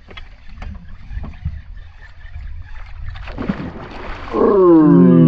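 A bass strikes a topwater lure with a splash about three seconds in, then a man lets out a loud, drawn-out yell of excitement whose pitch slides up and down. Low wind and water noise runs underneath.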